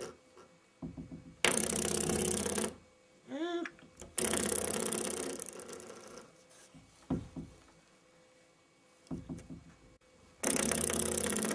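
Spring doorstop at the foot of a door being flicked by a baby's hand, twanging with a buzzing boing that dies away over a second or two; three flicks, about a second in, about four seconds in and near the end. A short baby squeal comes between the first two.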